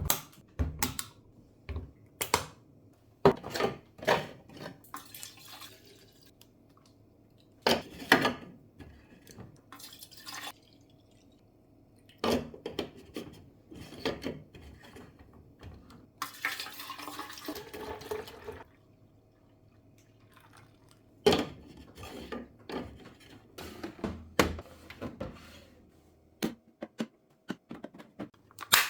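Containers and kitchenware being handled and set down while a fridge is restocked: scattered knocks and clinks, with a short rush of noise about two-thirds of the way through.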